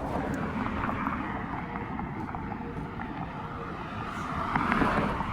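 Steady outdoor background noise with a low rumble, typical of distant road traffic, and a few faint clicks; it swells slightly near the end.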